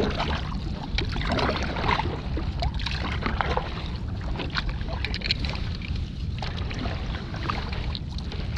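Water lapping against a stand-up paddleboard, with wind rumbling on the microphone and scattered light clicks and knocks.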